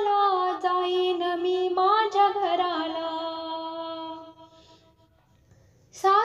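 A woman's solo voice singing a Marathi devotional song (gavlan), drawing out long held notes without words, with no accompaniment. The voice fades out about four seconds in, and after a short near-silent gap it comes back loudly near the end.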